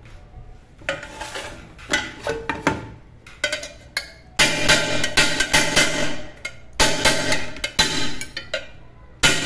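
Repeated blows on the swollen base of an aluminium pressure cooker, beating the bulge back flat. The knocks come singly and scattered at first, then in fast runs of strikes from about halfway.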